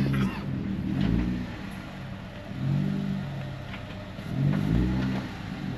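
Off-road 4x4's engine revving in surges a second or two apart as it works up a slippery, root-strewn trail, with low thuds beneath.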